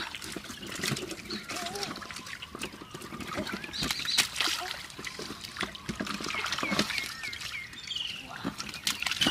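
Hands splashing and scooping in shallow muddy water, with irregular small splashes and sloshes. Short high chirps and a falling whistle-like call come in over it during the second half.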